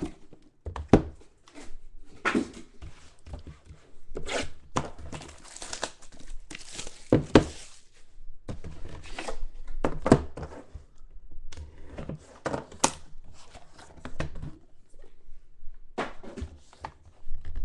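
A sealed trading-card box being unwrapped: packaging torn and crumpled, with irregular knocks and clicks of the box handled on a table.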